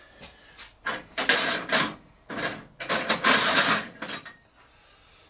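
Steel spanners clinking and scraping on the nuts of a small steam engine's main bearing cap as they are undone, in several short bursts with pauses between.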